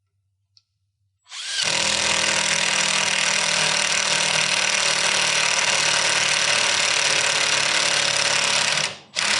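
Power drill running steadily at full speed for about seven and a half seconds, starting about a second in, then a short second burst near the end, as it is used to fasten a piece of steel angle in place.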